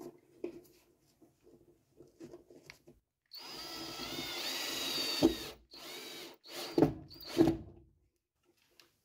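Cordless drill-driver driving a screw through a plasterboard patch disc into a wooden batten behind the plasterboard. After some light handling noise, the motor runs steadily for about two seconds, a little past the three-second mark, and then comes a few shorter bursts as the screw goes home.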